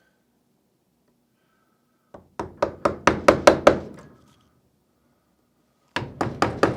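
Light, quick knocks of a mallet tapping a carving gouge into wood: a run of about eight strikes a couple of seconds in, then another quick run near the end.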